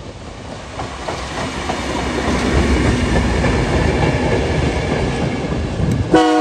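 Two diesel locomotives running light pass close by: engines running and wheels rolling on the rails, the sound growing louder as they come past. Near the end a locomotive horn gives a short blast, the loudest sound.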